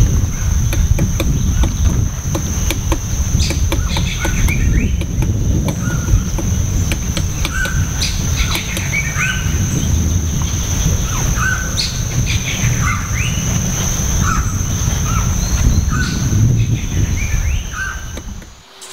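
Tropical forest ambience: a steady high insect-like whine, with many short, repeated bird calls and a low rumble beneath. It fades and cuts off just before the end.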